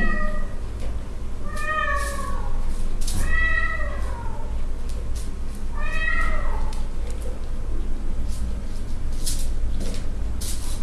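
Young kittens, about two months old, meowing: several short high meows that rise and fall in pitch, spaced one to two seconds apart in the first seven seconds, with scattered light clicks.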